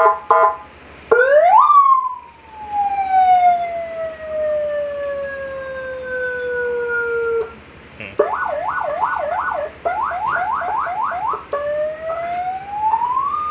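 A 100-watt electronic siren speaker, driven by its siren module, sounding through several siren tones. There are a few short beeps at the start, then a wail that rises quickly and falls slowly over about six seconds. From about eight seconds in comes a fast yelp of roughly four sweeps a second, and near the end a slow wail rises again.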